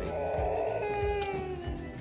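A baby's voice: one long, slightly falling cry or whine, over soft background guitar music.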